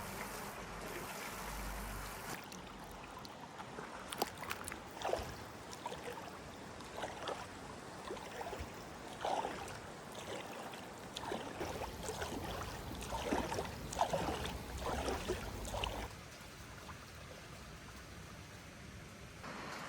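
Valley stream running steadily, with many short, irregular noises on top of it from about two seconds in until about sixteen seconds in; after that only the stream remains, a little quieter.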